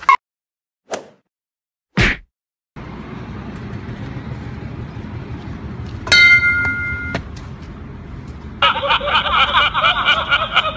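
Steady roadside traffic noise. About six seconds in, a loud, steady high-pitched tone starts suddenly and lasts about a second. From about nine seconds in, voices talk over it.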